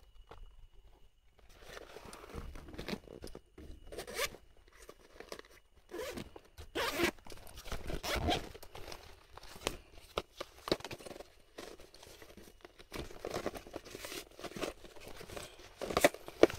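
Olive nylon rain gear being handled and rummaged through, giving irregular rustles, scrapes and zipper-like rasps, with a sharp knock near the end.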